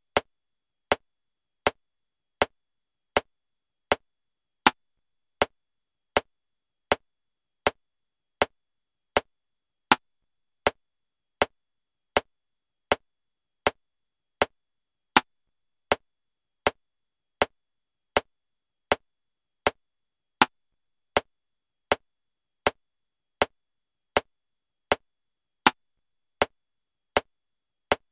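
Metronome clicking at 80 beats per minute in 7/4 time: a sharp click every three-quarters of a second, with a louder accented click on the first of every seven beats.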